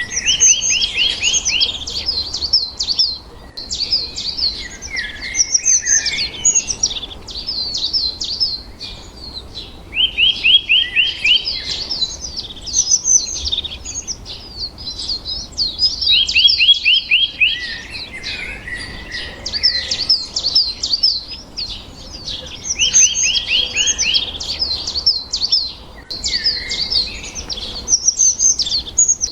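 A flock of small birds chirping and chattering without pause, with a quick run of evenly spaced trilled notes breaking in about every six to ten seconds.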